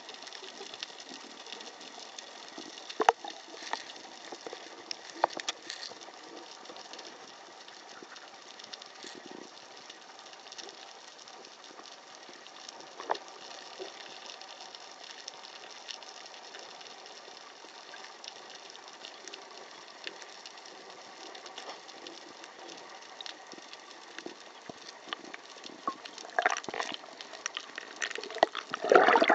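Underwater sound through a diving camera: a steady hiss with scattered sharp clicks, then louder splashing and bubbling water noise near the end as the camera nears the surface.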